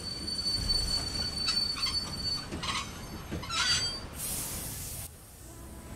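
Train wheels squealing on the rails as the train brakes to a halt: a steady high squeal, then several shorter squeals. About four seconds in there is a burst of hiss lasting about a second.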